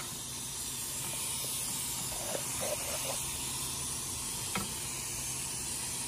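Steady hiss, with a few faint metallic clicks and taps as a long bolt is worked out of the rear suspension by hand.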